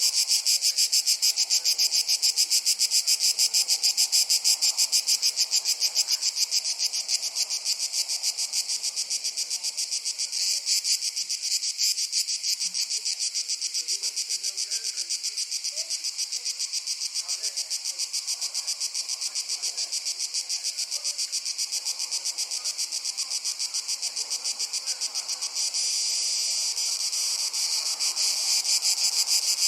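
A chorus of crickets chirring continuously in a fast, even pulsing rhythm, high-pitched, in a Mediterranean summer forest. It eases off slightly partway through and grows louder again near the end.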